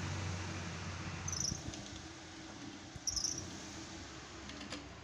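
Parts of a Toyota A245E automatic transmission being worked into the case by hand: a clutch drum twisted and pressed down onto its shaft, giving two short high squeaks about two seconds apart with faint knocks. A steady hum in the background drops away about a second and a half in.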